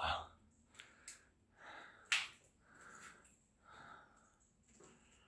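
Faint, close breathing, a breath about every second, with one sharp click about two seconds in.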